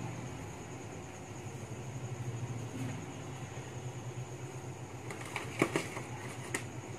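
A steady low mechanical hum, with three sharp clinks of kitchenware being handled in the last second and a half.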